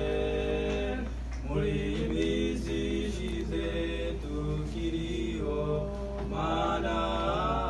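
Male vocal quartet singing unaccompanied in close harmony, over a steady low hum. The voices hold a chord, break off briefly about a second in, and go on in shorter syllables. Near the end they rise to a longer held chord sung with vibrato.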